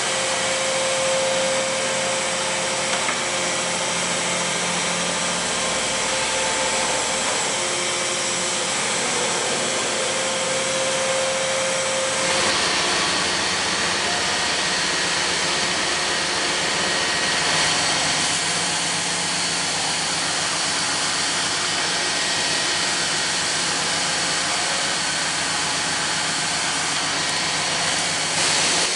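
M7130 hydraulic surface grinder running, its 12-inch abrasive wheel grinding a flat steel workpiece as the table traverses beneath it: a steady grinding hiss over the machine's hum. About twelve seconds in the sound turns brighter and hissier, with sparks flying from the wheel.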